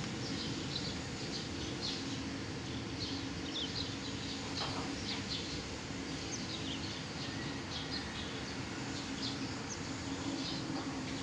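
Steady low machinery hum as Jet A-1 fuel is unloaded from a tanker truck through a hose, with birds chirping in many short high calls throughout.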